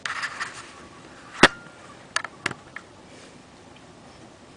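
Handling noise of a dash-mount siren amplifier: a brief rustle, then one sharp knock and three lighter clicks.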